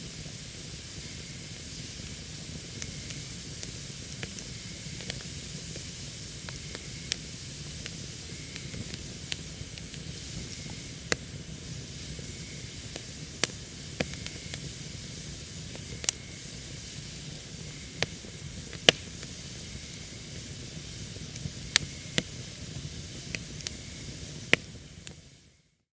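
Campfire burning very oily firewood: a steady hiss of flame with sharp pops and crackles scattered throughout, the loudest a few seconds apart. The sound fades out near the end.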